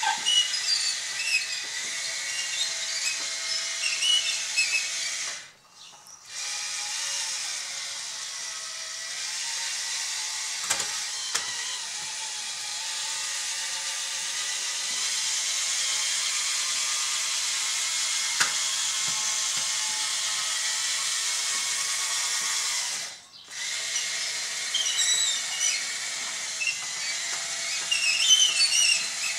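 Small electric drive motors and gearboxes of a Bruder CAT D11 bulldozer model converted to radio control, running with a steady high whine and clicking tracks as it drives and pushes sand. The motors stop briefly twice, about six seconds in and again about twenty-three seconds in.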